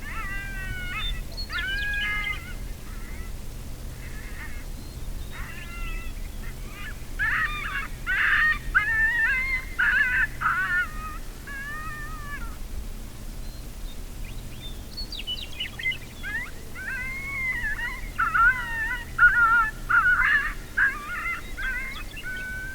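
Coyotes yipping and howling, several wavering voices overlapping in three bouts with short pauses between, loudest in the middle and near the end.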